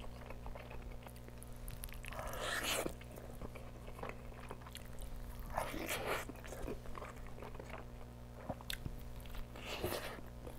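Close-miked biting and chewing of a double-patty burger, with three louder wet chewing bursts a few seconds apart and soft mouth clicks between them.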